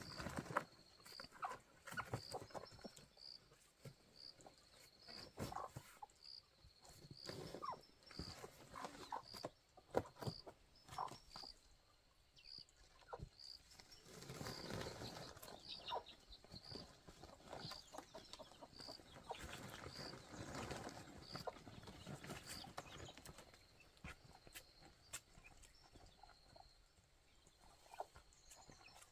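Chickens and geese giving short, scattered calls, with patches of rustling. A faint high insect chirp repeats about once a second behind them.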